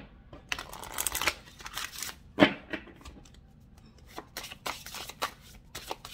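Oracle card deck being shuffled by hand: quick rustling and flicking of the cards, with one sharp snap of the deck about two and a half seconds in and a run of fast card flicks near the end.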